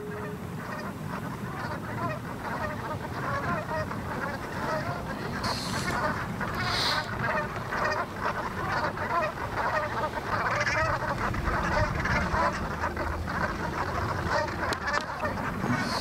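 A flock of brant geese calling: many short calls overlap into a steady, continuous chatter.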